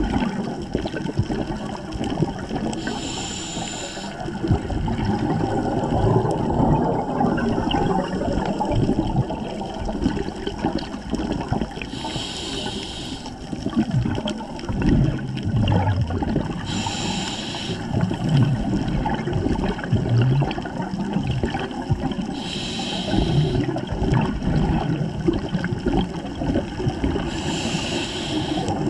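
Scuba diver breathing through a regulator underwater: five short hisses a few seconds apart as air is drawn in, with a continuous rumbling gurgle of exhaled bubbles in between.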